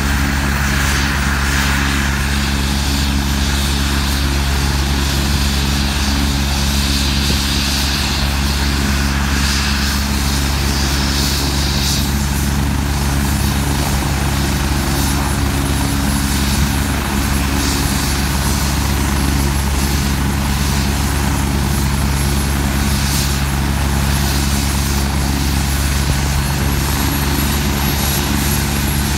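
AgustaWestland AW109 twin-turbine helicopter running on the ground with its rotors turning at a steady speed: a constant low rotor beat under turbine noise. A faint, thin high whine comes in about twelve seconds in.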